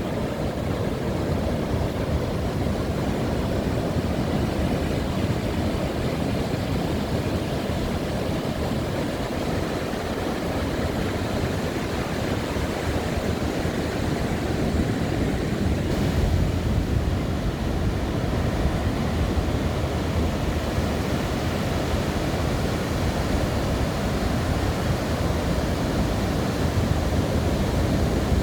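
Ocean surf breaking and washing onto a beach: a steady, low rush of waves that swells a little about halfway through.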